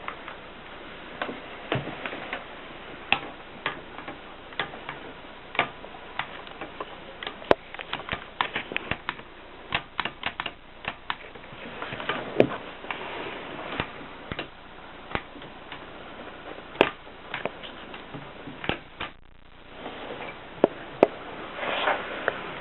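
Adler 7 manual typewriter being typed on: irregular key strikes at an uneven pace, with a brief pause near the end.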